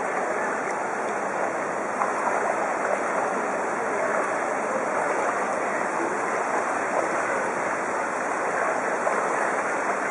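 Floodwater rushing and sloshing steadily around a bicycle riding through a flooded street.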